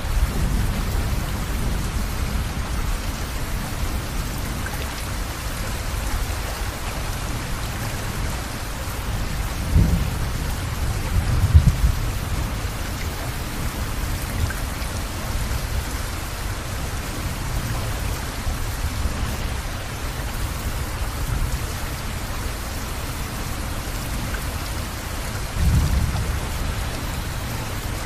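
Steady rain with low thunder rumbling underneath. The thunder swells three times: about ten seconds in, again a couple of seconds later, and near the end.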